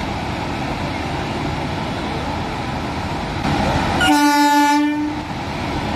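A train horn sounds one blast of about a second, roughly four seconds in. Under it runs the steady rumble of an electric locomotive standing at the platform and an EMU local train pulling in.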